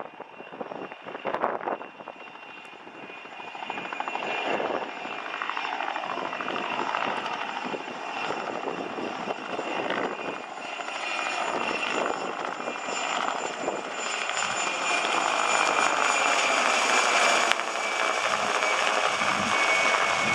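Helicopter flying past, its engine and rotor noise getting louder and loudest in the last few seconds, with a steady high whine over it.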